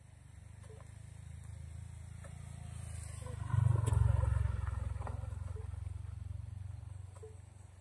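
A motorcycle passing by, its engine growing louder to a peak about four seconds in and then fading away.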